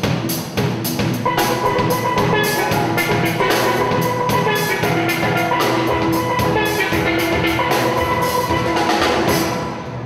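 Steel band music: steel pans playing a melody over a steady drum beat, building up over the first second.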